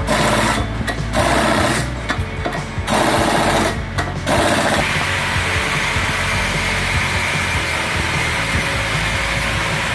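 Pneumatic impact wrench hammering in short bursts on the rear sprocket bolts of a motorcycle wheel, three or four bursts in the first four seconds or so, then a steady even background noise.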